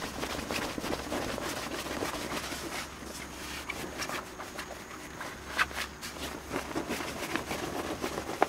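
Polycotton tent door panel being rolled up by hand: irregular fabric rustling and scraping, with a couple of sharper clicks in the second half.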